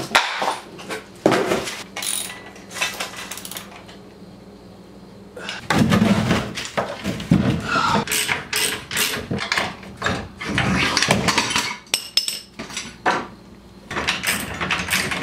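Packaging rustling as a swing-away trailer jack is unboxed, then after a pause, metal clanks and a ratchet wrench clicking as the jack's clamp bracket is bolted onto the steel trailer tongue.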